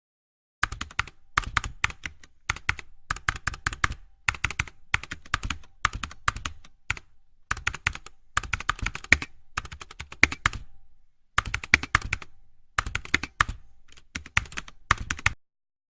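Rapid, irregular clicking and tapping in quick clusters with short gaps, starting about half a second in and stopping sharply just before the end.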